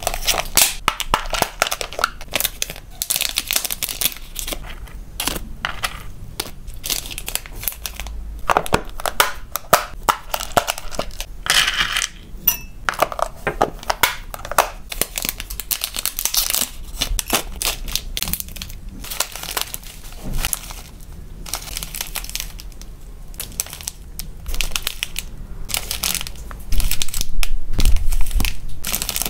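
Close-up handling of plastic food boxes and bags: many sharp clicks and taps of plastic lids and containers, with small dry hamster treats rattling and being scooped into a glass dish. The loudest part is near the end, where clear plastic zip bags are crinkled.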